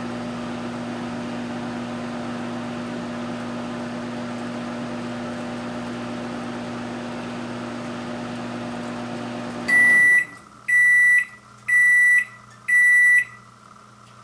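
Microwave oven running with a steady hum, which stops about ten seconds in. Four loud beeps follow, about one a second, signalling that the cooking cycle is done.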